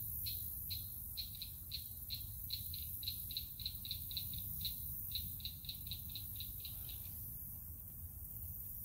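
A series of short, high clicking calls from a small animal, about two a second at first and quickening to about five a second, that stops about seven seconds in. A steady high hiss runs underneath.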